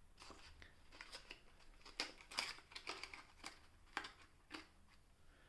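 Faint handling of firework packaging: a string of light clicks, taps and rustles as cardboard tubes and wrapping are picked up and set down.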